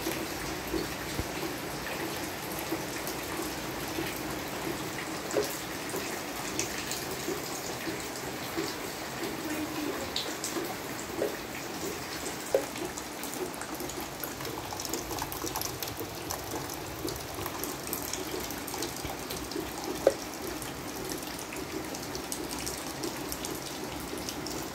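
Steady rain with water dripping from a leaking ceiling into a plastic basin: single drops land as sharp ticks every second or two, a few of them much louder.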